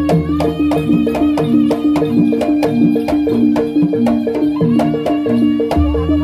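Jaranan (kuda kepang) gamelan accompaniment: a repeating pattern of tuned gong-chime notes over a quick drum beat of about four strokes a second, with a wavering melody line above.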